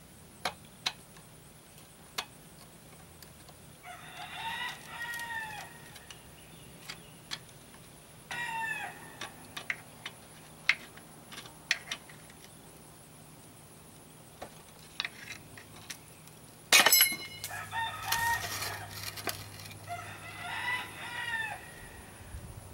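A rooster crowing about four times, with scattered light clicks and taps of a steel screwdriver working at a stuck bolt on an outboard's shift rod. About three-quarters of the way through comes a loud, ringing metal clank.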